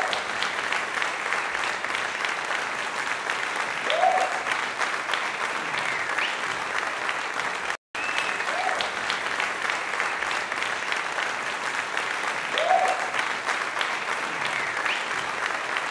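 Crowd applause: dense, steady clapping with a few short cheers or whoops. The same stretch plays twice, with a brief dropout about eight seconds in.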